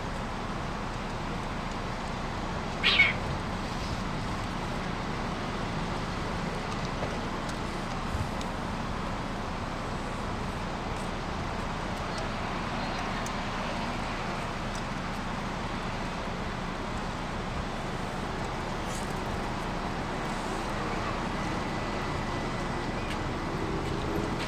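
A cat meows once, short and loud, about three seconds in, over steady background noise.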